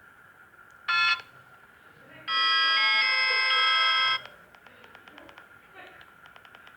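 Philips E106 mobile phone playing ringtone snippets through its small speaker: a short electronic tone about a second in, then a longer electronic melody of about two seconds, followed by faint clicks.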